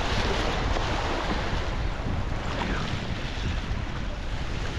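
Small waves washing and foaming over jetty rocks, with wind buffeting the microphone in a steady low rumble.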